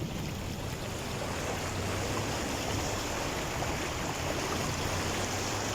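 Floodwater rushing, a steady noise of fast-flowing water.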